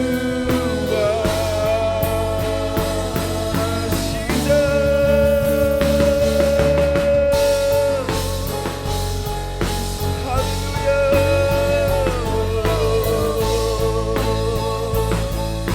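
Contemporary worship band playing a passage without words: steady bass and drums under long held melody notes that slide from one pitch to the next.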